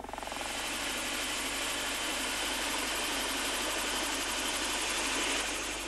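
Helicopter running close by: a steady rushing of turbine and rotor with a fast, even rotor beat, swelling over the first half second.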